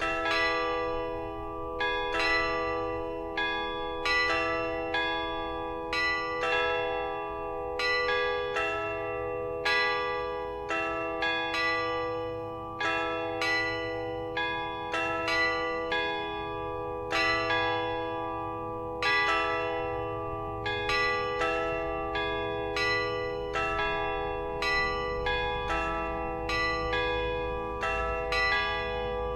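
Church bells pealing: a steady run of strikes, about one to two a second, each ringing on so the tones overlap.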